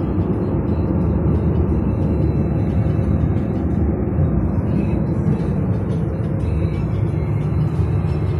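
Steady, muffled road and engine noise of a car cruising on a multi-lane highway, heard from inside the cabin, with music playing along with it.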